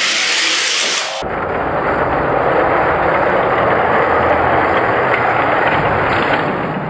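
Die-cast Hot Wheels toy cars rolling down a six-lane orange plastic drag-race track: a brief high hiss, then from about a second in a loud, steady rolling noise of the wheels on the plastic lanes.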